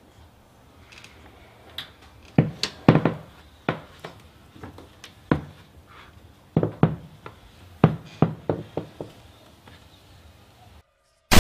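Slow, heavy footsteps: a series of irregular thuds roughly every half second, starting about two seconds in and stopping near nine seconds. The sound cuts to silence shortly before the end.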